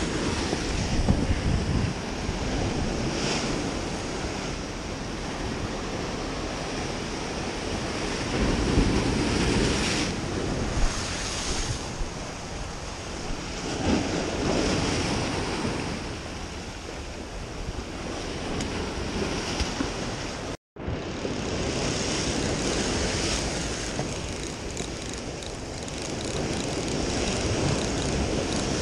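Sea surf breaking and washing over shoreline rocks, with wind buffeting the microphone. The sound swells and eases in several surges, and cuts out for a split second about two-thirds of the way through.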